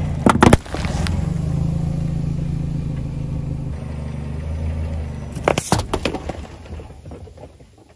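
Car tyre rolling over full aluminium drink cans and crushing them: a sharp burst about half a second in, then a second can crushed with a cluster of cracks and crackles about five and a half seconds in. Under it the car's engine hums low and steady.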